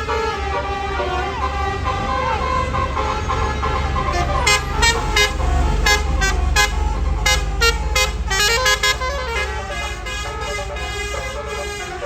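Tour bus's Basuri telolet horn sounding a melody of stepping musical tones over the bus's running engine, with a run of quick short blasts in the middle.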